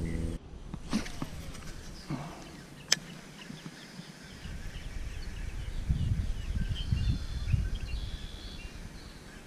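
Outdoor ambience with a low rumble that swells in the middle and fades. There are two sharp clicks, one about a second in and one about three seconds in, and faint bird chirps in the second half.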